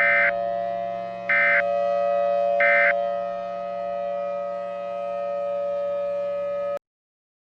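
Emergency Alert System end-of-message data code: three short warbling digital bursts about 1.3 seconds apart, sounding over a steady droning tone. The drone cuts off abruptly near the end, signalling that the alert is over.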